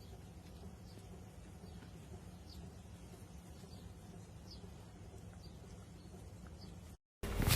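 Quiet background with a steady low hum and faint, short high-pitched chirps about once a second. Near the end the sound cuts out for a moment, then a louder passage with sharp clicks begins.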